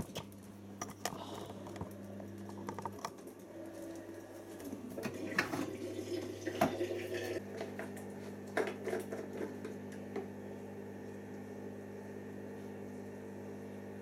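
Scattered plastic clicks and knocks as the detergent drawer of a Siemens IQ front-loading washing machine is pulled open and handled, over a steady low hum.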